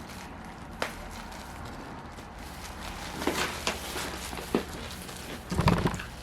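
Handling noises from a crisp, baked cooking bag of seafood being opened: scattered crinkles and sharp taps, with a louder burst of rustling and knocking near the end.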